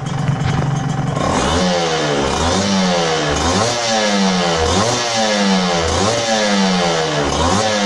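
Yamaha TZM 150's liquid-cooled single-cylinder two-stroke engine running and being blipped with the throttle about once a second, its pitch rising and falling with each blip. The revs are kept modest because the engine is freshly overhauled, and the revving exercises the power-valve servo, which follows the RPM.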